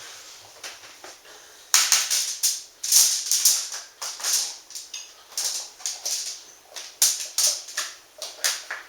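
Quick, irregular rattling and clattering, starting about two seconds in and going in uneven bursts: drained canned black beans being shaken and handled in a strainer.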